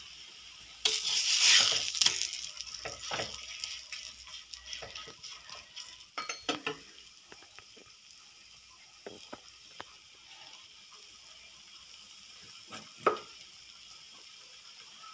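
Parotta frying in oil on a hot iron dosa griddle: a loud burst of sizzling about a second in that dies down over the next few seconds. A few light metal clicks and scrapes on the griddle follow, with a sharper one near the end.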